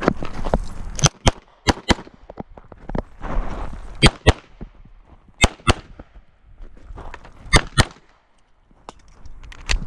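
Beretta 92 9mm pistol firing fast pairs of shots, about a quarter second apart, during a timed run: five pairs, with a single shot near the end.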